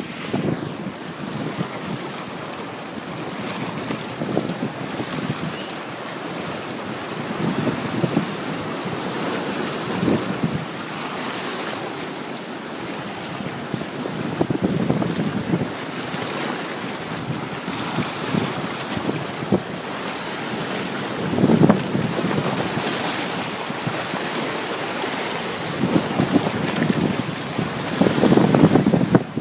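Ocean surf with wind buffeting the microphone, swelling in irregular surges every few seconds, the strongest near the end.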